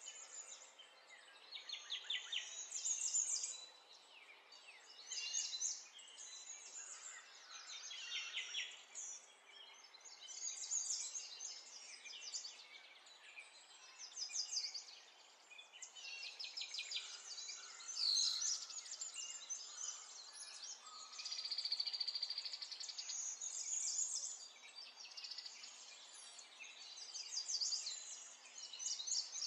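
Small birds chirping and singing in short, high, quickly repeated phrases, one after another, over a faint steady outdoor hiss.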